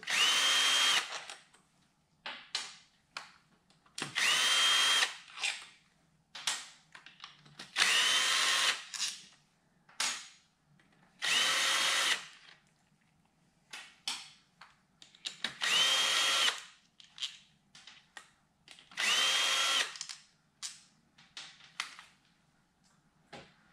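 Ryobi cordless drill backing out the clutch-cover screws on a Ducati 400SS engine: six short runs of about a second each, every three to four seconds, each spinning up quickly to a steady high whine. Small clicks and taps between the runs.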